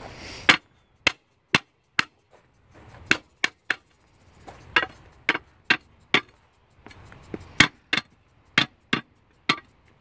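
A brick that sits too high being knocked down into its gravel bed: a string of sharp knocks, about one or two a second and unevenly spaced.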